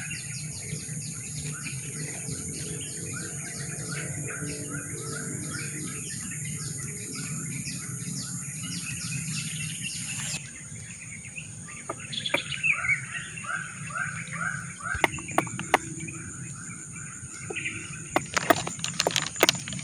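Birds calling in quick runs of repeated chirps, over a steady high-pitched drone. Near the end come sharp crackling and rustling noises in the grass.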